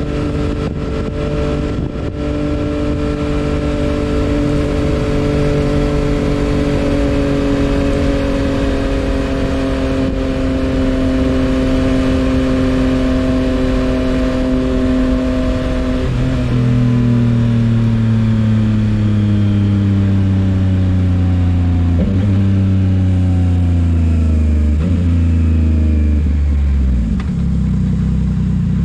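Liquid-cooled inline three-cylinder engine of a Yamaha MT-09 SP, heard through a full-system M4 aftermarket exhaust while riding. The engine note falls steadily as the bike rolls off and slows. About halfway through it drops lower, breaks briefly a few times, and settles to a low, steady note near the end as the bike comes up to a red light.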